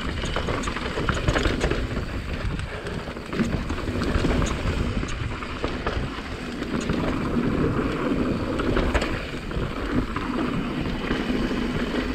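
Mountain bike running down a dirt trail: wind buffeting the action camera's microphone, tyres rolling over dirt and stones, and the bike rattling with many small clicks over the bumps.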